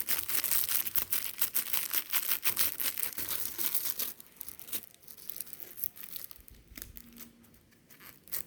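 Plastic wrapper and paper prize card crinkling and tearing as they are opened by hand, busy for about the first four seconds, then sparser and quieter.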